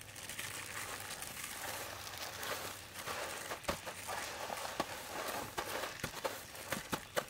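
Dry breadcrumbs rustling and crunching as hands toss and press raw chicken pieces into them on a steel tray, with scattered sharp little clicks.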